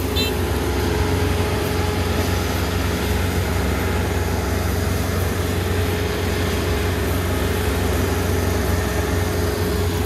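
Kubota ER470 Dynamax Revo combine harvester's diesel engine running steadily under working load, a deep even drone with a steady hum above it.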